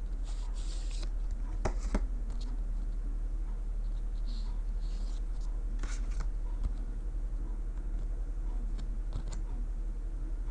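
Hands handling the box contents and accessories: scattered light clicks, taps and rustles, the sharpest about two seconds in and again around six seconds, over a steady low hum.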